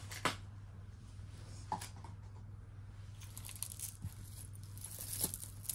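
Hands rummaging through a pile of beaded and chain jewelry on a cloth: a few light clicks of beads and metal knocking together and soft rustling of the cloth, over a steady low hum.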